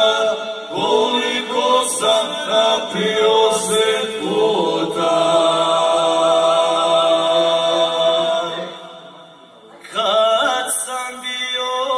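Three male voices singing a Krajina folk song together in close harmony, unaccompanied, through microphones. A long held note fades out about nine seconds in, and after a short breath the singing resumes.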